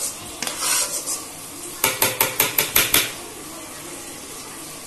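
A utensil scraping, then tapped quickly against a stainless-steel mixer jar: a run of about eight sharp metallic knocks lasting about a second.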